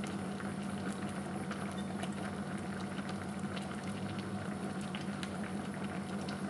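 Fettuccine in cream sauce boiling in a pan: a steady bubbling with many small pops, over a low steady hum. The sauce is at a full boil, ready for the cheese to go in and thicken it.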